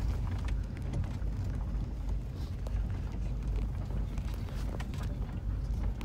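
Car travelling down a rough gravel road: a steady low rumble of engine and tyres, with scattered small clicks of stones under the wheels.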